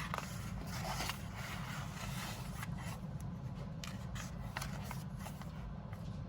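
Faint rustle and scrape of paper book pages being handled and turned, with a few light clicks, over a steady low hum.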